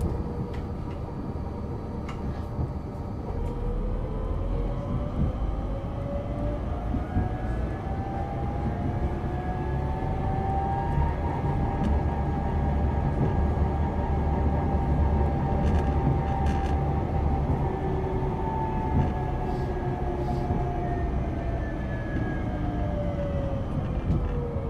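Adtranz GT6N tram's electric traction drive whining over a low running rumble. The whine climbs in pitch over several seconds as the tram accelerates, holds steady, then falls near the end as it slows down.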